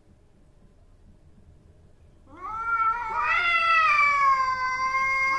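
Domestic tabby cat's long, drawn-out threat yowl, starting about two seconds in and held at a steady pitch, rising slightly near the end. It is the warning call of a cat in a face-off with a second cat.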